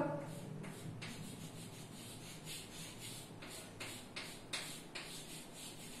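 Chalk rubbing on a blackboard in a run of faint, quick scratchy strokes as a letter D is shaded in.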